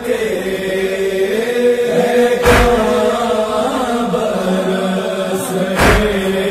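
Noha, a Shia mourning lament, chanted by voices on long held notes, with two heavy thumps about three seconds apart.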